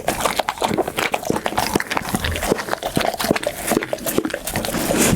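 Pit bull eating close to the microphone: rapid, irregular wet chewing and smacking with crunchy clicks.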